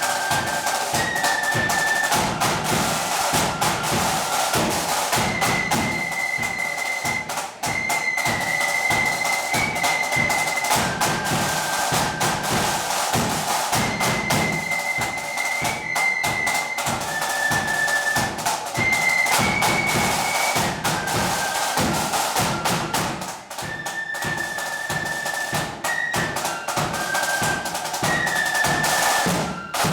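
A marching band playing: a high melody of held notes over rapid snare and bass drumming.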